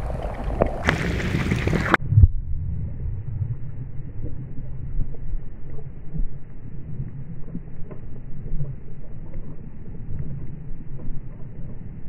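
Splashing water for about two seconds, ending abruptly. It gives way to the muffled low rumble and faint clicks of water heard through a submerged action camera's waterproof housing.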